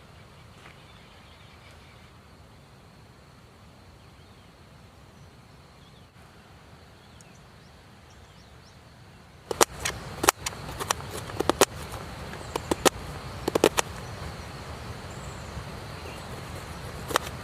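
Faint steady outdoor background noise. About halfway through it turns louder, and a string of sharp, irregular clicks and knocks begins.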